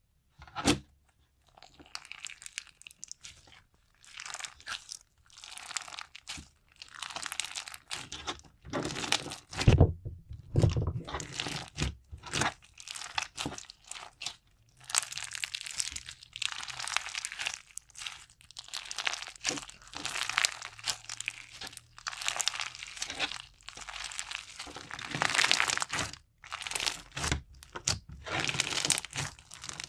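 Slime being squeezed and stretched by hand: a string of crackling squishes, each about a second long, with short pauses between.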